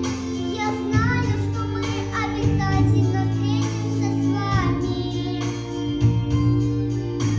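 A boy singing a Russian song solo over a recorded instrumental backing track with sustained low accompaniment notes.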